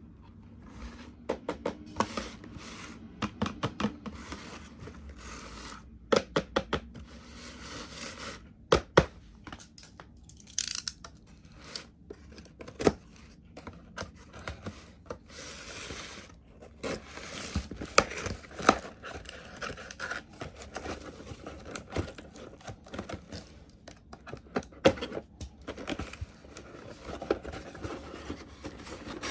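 Toy packaging being opened and handled by hand: tearing and crinkling with many sharp clicks and taps.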